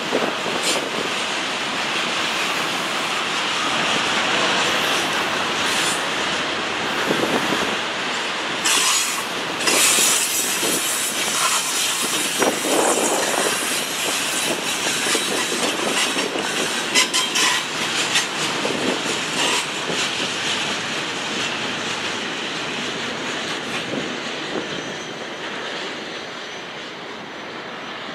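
A freight train's cars rolling past on the main line, a steady rumble of steel wheels on rail broken by scattered sharp clicks over the joints, easing off near the end.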